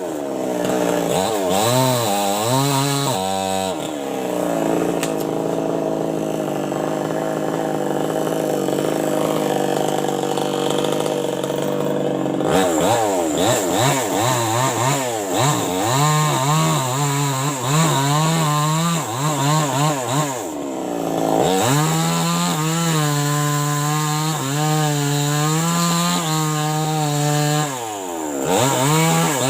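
New West 588 two-stroke chainsaw cutting teak wood. It runs at high revs with its pitch wavering under load, and the revs drop briefly about twelve seconds in, about twenty seconds in and again near the end.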